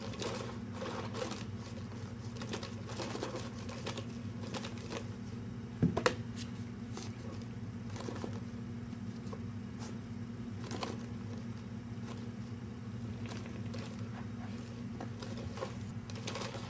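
Cat pawing at a homemade cardboard drum toy on carpet: scattered soft scrapes and rustles, with one sharp knock about six seconds in, over a steady low hum.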